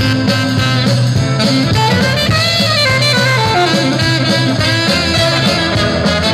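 Live recording of a jazz swing band, saxophone and brass playing held melody lines over bass and drums, played back from a reel-to-reel tape master through studio monitors.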